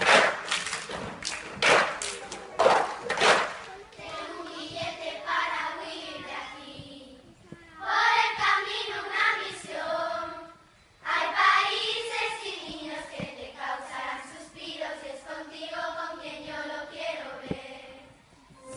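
Clapping for the first four seconds or so, then a group of children singing together in phrases, with short breaks between lines.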